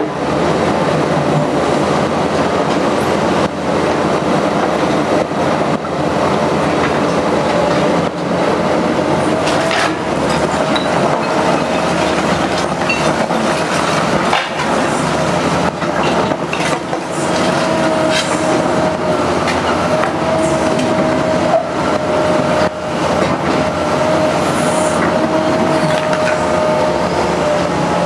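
Liebherr R944C crawler excavator working demolition rubble: its diesel engine runs under load while the bucket scrapes and knocks through broken masonry, with repeated clattering impacts. A steady high whine sets in about ten seconds in.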